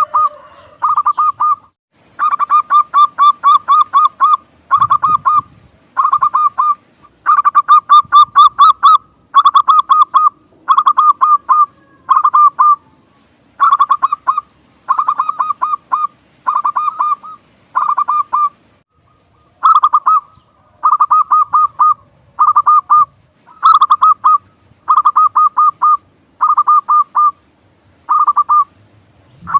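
Zebra dove (perkutut) cooing song: phrases of rapid, staccato coo notes repeated over and over with short pauses between them.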